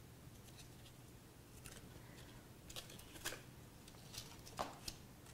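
Faint rustling and light taps of cardstock pieces being handled and pressed together as glued side panels are set, with a few soft clicks scattered through.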